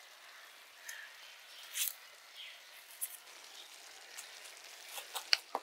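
Faint, scattered light clicks and scrapes of a small knife peeling the skin off a tomato, over a quiet hiss.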